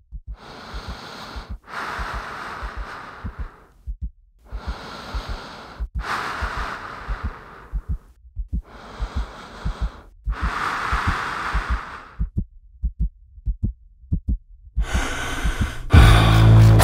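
Heavy, deep breathing, about six long breaths in and out, over a steady heartbeat thump. Near the end the breathing stops, the heartbeat goes on alone, and then loud electronic music with a heavy bass comes in.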